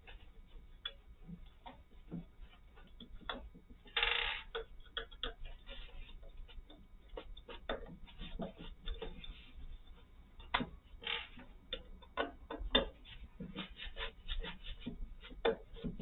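Phillips screwdriver turning out screws from a pushchair chassis: many small irregular clicks and ticks of the tool in the screw heads, with one brief louder rasping noise about four seconds in.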